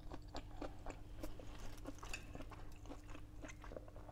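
Close-up chewing of a crunchy oven-baked prawn in a panko and crushed-crisp coating, a fast, irregular crackle of crunches over a faint steady hum.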